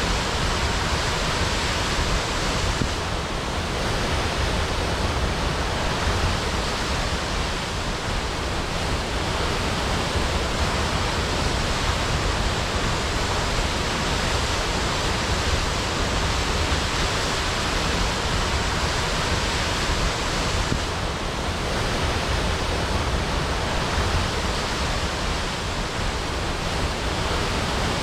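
Waterfall crashing: a steady, dense rush of falling water, full in the low end, with no breaks.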